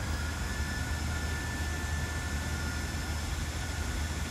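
Steady low rumble of city street background noise, with a faint steady high-pitched whine over it.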